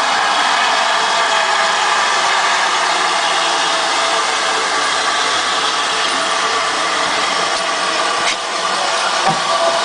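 GWR 2884-class 2-8-0 steam locomotive No. 3822 passing slowly at close range: a loud, steady hiss of steam with no clear exhaust beat, and a few low thuds near the end.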